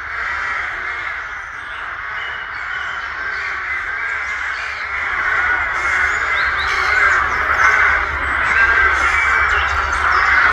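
A rookery: many rooks cawing at once from their treetop nests in a dense, continuous din that grows louder in the second half.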